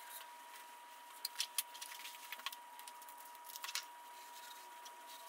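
Paper towels rubbing and scuffing over a cast iron saw table as degreaser is wiped off, with a few sharp clicks and taps in the middle. A steady, faint high-pitched tone runs underneath.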